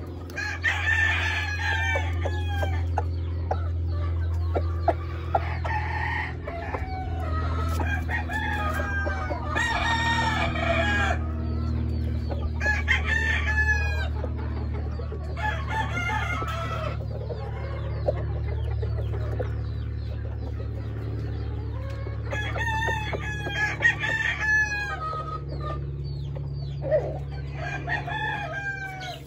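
Gamefowl roosters crowing again and again, every few seconds, with chickens clucking between the crows, over a steady low hum.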